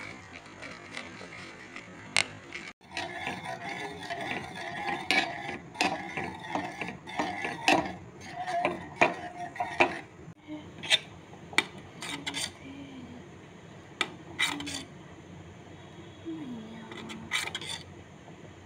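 Stirring in a stainless steel pot: a whisk and a metal spoon scraping and clinking against the pot's side and bottom, in irregular sharp clinks, busiest in the first half.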